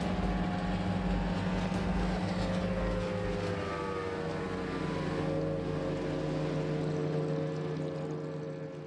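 Motorboat engine running at speed, steady at first, then its pitch slides down a few seconds in and the sound fades away near the end as the boat passes.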